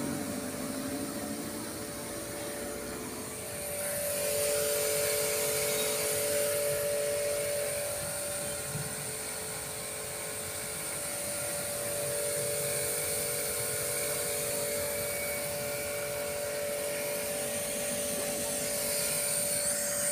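Clif Max domestic electric car washer (pressure washer) running under test, its motor and pump giving a steady hum under the hiss of the high-pressure water jet from the gun. It gets louder about four seconds in.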